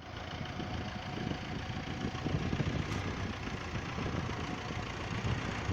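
Hyster forklift engine running steadily at low revs.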